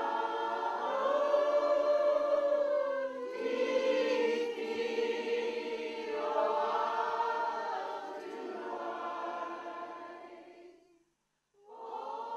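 A group of voices singing together in long held, gliding notes, a Māori welcome song. The singing fades and breaks off into a moment of silence shortly before the end, then starts again.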